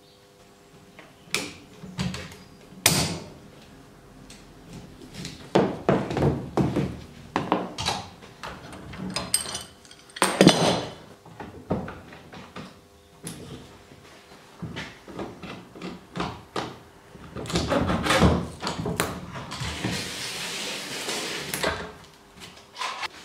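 Metal F-clamps and bar clamps being loosened and lifted off a glued-up wooden window frame: irregular clunks and knocks of the clamps and their wooden pad blocks against the frame and the bench, with a few seconds of scraping near the end.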